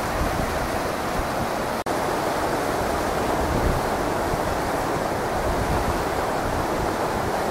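Muddy flash-flood water rushing down a normally dry gully: a steady rush of noise. It cuts out for an instant about two seconds in.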